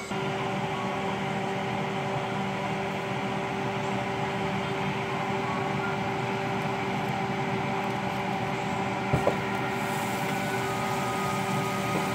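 Steady hum and hiss of a kitchen fan motor running, with a couple of light knocks about nine seconds in.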